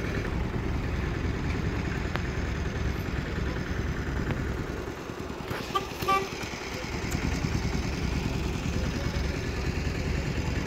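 Steady low rumble of vehicle engines running as cars board a ferry ramp, with a short double toot of a horn about six seconds in.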